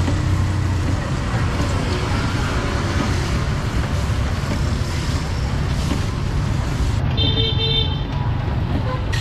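Steady street-traffic rumble from passing motorbikes and vehicles, with a short vehicle horn toot about seven seconds in.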